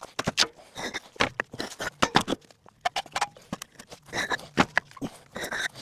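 Concrete blocks knocking and scraping against each other as they are lifted and set down one after another, in irregular clacks, with footsteps between.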